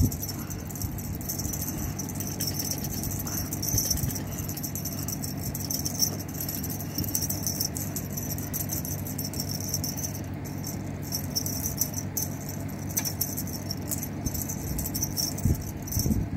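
A feather cat-teaser toy rattling and jingling continuously as it is shaken, a light crackle of many small clicks, over a steady low hum.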